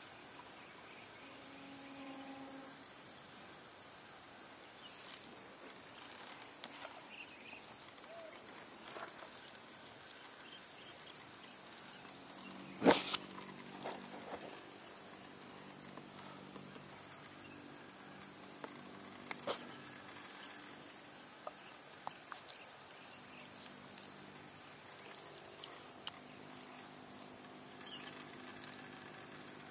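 Insects chirping steadily in a high-pitched drone, one pulsing note fading out about halfway through. A single sharp click about thirteen seconds in is the loudest sound, with a few fainter clicks later.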